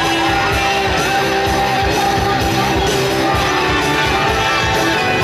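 Loud music with a steady beat, played over the arena's public-address system.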